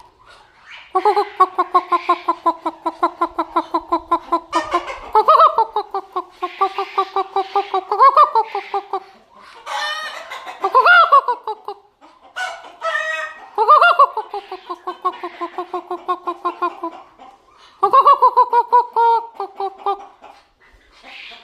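A person imitating chicken clucking and duck quacking by voice. The clucks come in rapid runs of about ten a second, each run a few seconds long, with short gaps between them and several rising-and-falling squawks.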